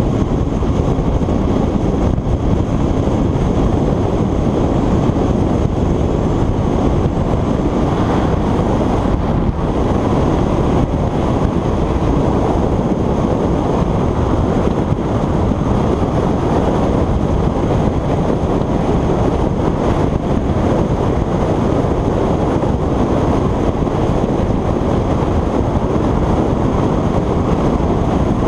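Steady wind rush over the microphone of a motorcycle-mounted camera riding at motorway speed, with the motorcycle's running and road noise underneath.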